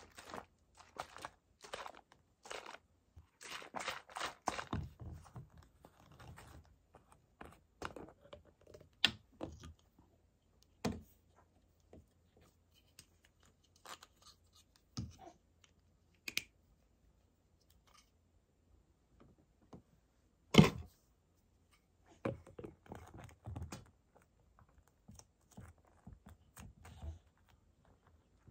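Scattered clicks, scrapes and light knocks of things being handled, with one sharp, much louder knock about twenty seconds in.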